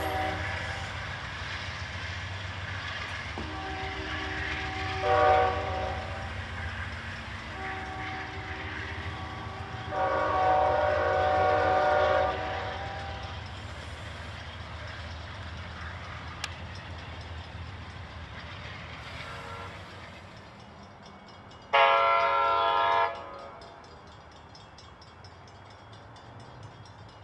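Amtrak passenger train air horn sounding several chord blasts over the low rumble of the moving train. There is a blast with a short louder note about five seconds in and a longer blast from about eight to twelve seconds. About 22 seconds in comes a short, loud blast.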